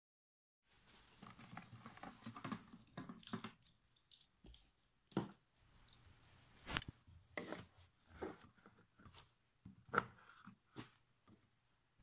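Irregular clicks, taps and short rustling scrapes of handling, with a faint steady low hum underneath.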